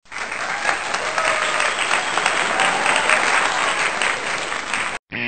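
Crowd applause, a dense clatter of many hands clapping with faint whistles, cutting off abruptly about five seconds in; guitar music starts just after.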